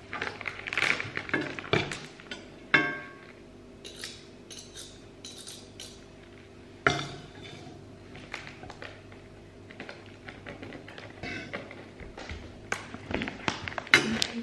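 Metal tongs and cutlery clinking and scraping against a stainless steel frying pan and plates while pasta is served, with sharp clinks about three seconds in, about seven seconds in and several near the end. Soft background music runs underneath.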